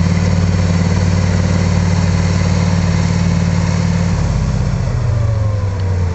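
T-55 tank's V12 diesel engine running steadily while its exhaust smoke system lays a smoke screen; about four and a half seconds in the engine slows and its pitch drops.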